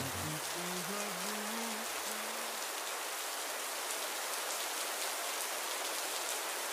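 Steady rain, a rain ambience track. The last few notes of a lo-fi hip hop beat trail off over the first two and a half seconds, leaving only the rain.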